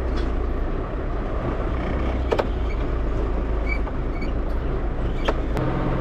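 Tractor diesel engine running steadily, heard from inside the cab of the small 6200 tractor, with a rattly drone. Two sharp knocks sound about two and a half and five seconds in, and a steadier hum in the engine note sets in just before the end.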